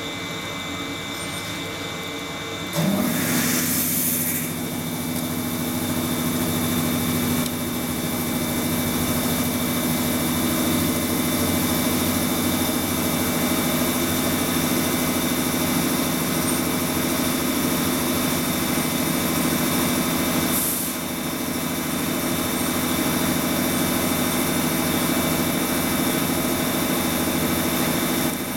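JR East Series 211 electric train standing at the platform with its onboard equipment humming steadily. About three seconds in, a short hiss comes and a motor spins up with a quick rising pitch, then runs on steadily. Another short hiss comes around twenty seconds in.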